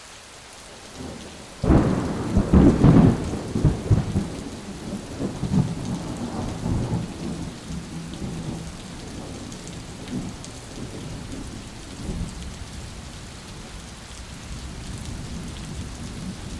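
Thunderstorm: steady rain with a sudden loud clap of thunder under two seconds in that rolls and rumbles away over the next few seconds, and a weaker rumble near the end.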